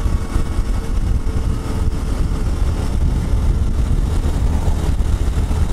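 Honda CT125 Hunter Cub's single-cylinder engine, fitted with an aftermarket engine kit, pulling steadily under a wider throttle on an uphill climb. It is mixed with a heavy low rumble of wind and road noise from riding.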